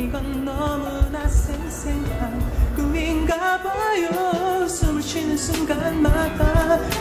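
Background song with a singing voice over a steady beat; the bass and beat drop out for about a second and a half just past the halfway point, then return.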